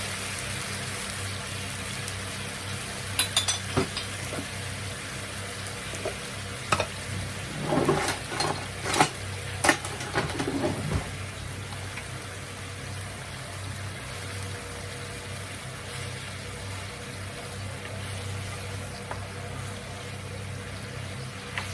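Food sizzling steadily in a frying pan, with a few clicks about three seconds in and a burst of knocks and clatter from utensils against the pan between about 8 and 11 seconds in.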